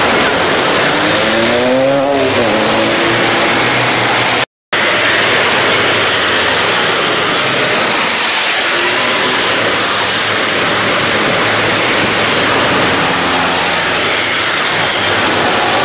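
Steady, loud road traffic at a busy junction: buses and vans driving past, with an engine note that rises and falls about two seconds in. The sound drops out completely for a moment about four and a half seconds in, then the traffic noise carries on.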